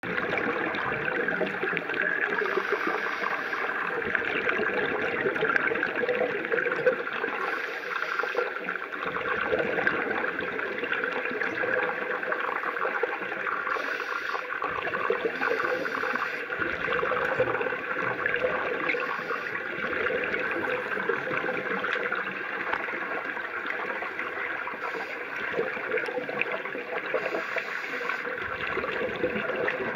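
Scuba divers' breathing heard underwater through the camera: a steady muffled hiss and crackle, with a burst of regulator exhaust bubbles every few seconds.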